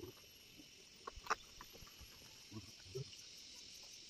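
Insects chirring steadily in the background, with a few light taps and knocks from handling the wood, the sharpest about a second in.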